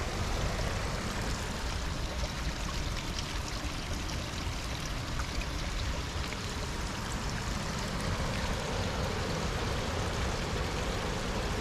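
Small rain-fed forest stream running after heavy rain, a steady rush of water trickling and splashing over rocks and fallen branches.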